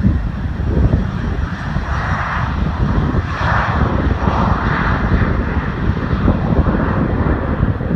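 Jet airliner engines roaring, with a heavy low rumble and a rushing mid-pitched roar that swells about two seconds in and fades again a few seconds later.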